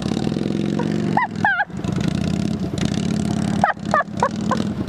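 Motorcycle engine running steadily at low revs with a fast, even pulse. Short high-pitched calls that bend in pitch break in over it about a second in and again several times near the end.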